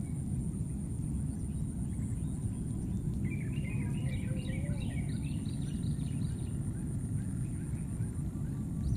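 Outdoor ambience with a steady low rumble and a steady high whine, and a burst of quick, high bird chirps from about three to five seconds in.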